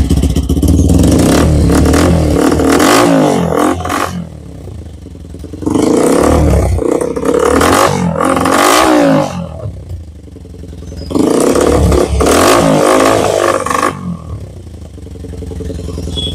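Single-cylinder TVS Apache RTR 160 4V motorcycle engine revved hard three times through an aftermarket carbon-finish silencer fitted with a dB killer, the pitch rising and falling with each blip. It settles back to a lower, steady idle between revs and near the end.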